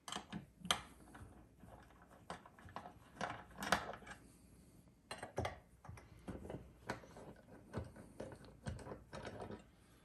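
Hex key clicking and scraping in the bolts of a polished billet-aluminum cash box as the bolts are turned: irregular small metal clicks and taps, with a few louder knocks.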